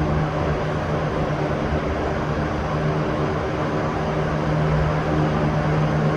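Electric fan running steadily: an even rush of air from the blades over a constant low motor hum.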